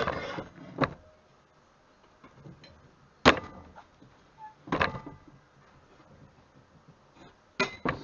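Steel pedal assembly parts knocking and clanking against each other and the wooden bench as the brake pedal arm is fitted into the bracket: about five separate sharp knocks, two close together near the end, with quiet between.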